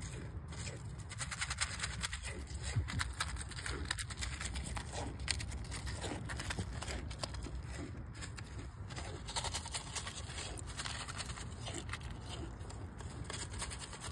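Goat kid suckling at its mother's udder: quick, irregular wet clicks and smacks, with a steady low rumble beneath.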